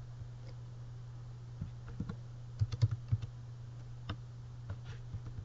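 Typing on a computer keyboard: irregular keystrokes, with a quick run of several about halfway through, over a steady low hum.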